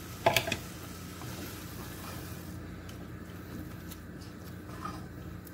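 Grated carrots and freshly added milk cooking in a steel pot, giving a steady faint sizzle, while a wooden spoon stirs through them with a few soft ticks. A single sharp knock comes just after the start.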